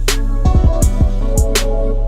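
Music with a drum beat over a steady bass line.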